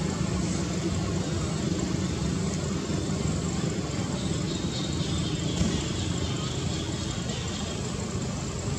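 Steady outdoor background rumble with an even hiss and no distinct events, a low hum running under it throughout.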